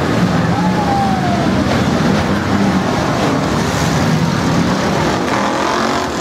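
Many demolition derby cars' engines running and revving together in a loud, continuous din.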